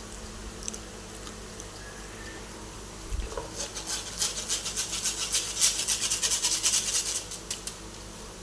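Flour being rubbed by hand through a fine wire-mesh sieve: a fast, scratchy rasping that starts about three seconds in and stops shortly before the end.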